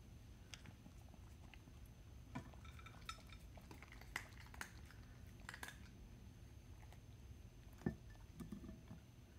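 Faint clicks and clinks of a plastic food-dispensing ball knocking against a glass pie dish as a cat noses and paws it, with one louder knock about eight seconds in.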